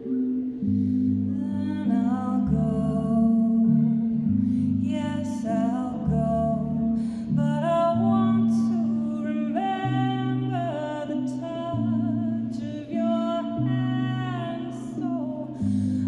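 A woman sings a slow melody of long held notes into a microphone over sustained chords on a Casio electronic keyboard. The chords change every second or two.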